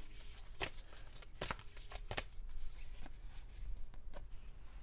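A deck of oracle cards being shuffled by hand: a run of short, irregularly spaced card slaps and rustles.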